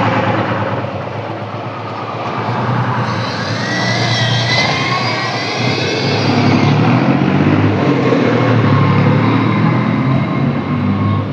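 Motor vehicle engine pulling away from a stop and running along a street. A high wavering whine comes in for a few seconds in the middle.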